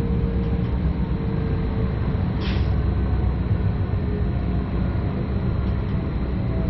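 Stadler FLIRT Sm5 electric multiple unit heard from the driver's cab: a steady low rumble with faint humming tones. A short hiss cuts in about two and a half seconds in.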